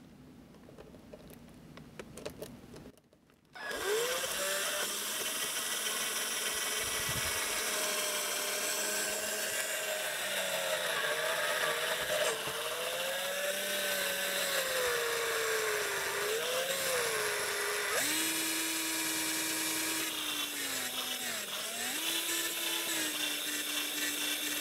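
Cordless drill with a 1/8-inch bit starting a few seconds in and running continuously, its motor whine wavering in pitch under changing load as the bit is used like a router to widen a hole in the ballasted roadbed. It stops abruptly at the end.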